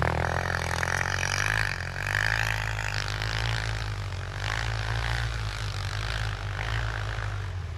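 ATV (quad) engine running and revving, its pitch rising and falling as the throttle changes.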